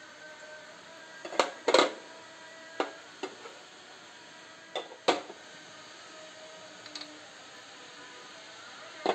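Small white cups and lattice-edged saucers clinking as they are set down one by one on a tray: a string of sharp clinks and taps, the loudest a quick double clink nearly two seconds in and another pair about five seconds in.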